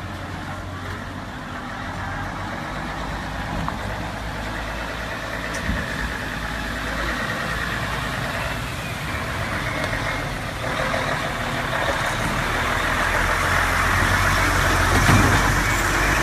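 A large truck's engine running as it drives up and passes close by, getting louder over the last few seconds, with a rising hiss of tyres on the flooded road.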